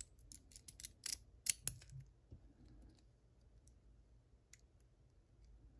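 Small, sharp metal clicks and taps as the Mul-T-Lock 7x7 lock's parts and a small tool are handled during disassembly: a quick cluster of clicks in the first two seconds, the loudest about a second and a half in, then a few faint ticks.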